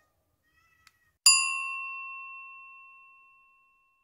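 A single bell-like chime struck about a second in, ringing on and fading away over about two seconds.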